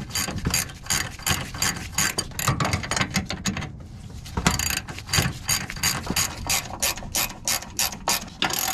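Hand ratchet wrench clicking in quick, regular strokes as it runs in a power steering gearbox mounting bolt, with a short pause about four seconds in.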